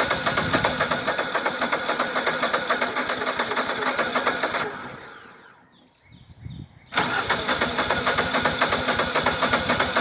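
Landmaster LM650 UTV engine being cranked over on its starter, a fast even chugging that does not catch. The first cranking winds down about five seconds in, and a second cranking attempt starts about seven seconds in. This is a hard start: the engine keeps dying out.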